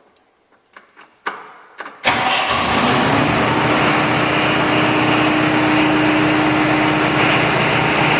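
Bobcat 843 skid steer's 54 hp Perkins four-cylinder diesel starting: a few light clicks, then it catches at once about two seconds in and runs steadily, starting easily.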